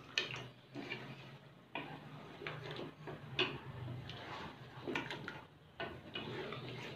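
Spoon stirring goat trotters in oil in a cooking pot, with irregular clicks and knocks against the pot over a steady low hum.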